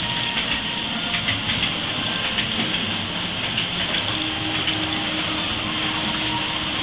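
OO-gauge model train running on the layout: a steady whir with a rapid clicking of wheels over the rail joints.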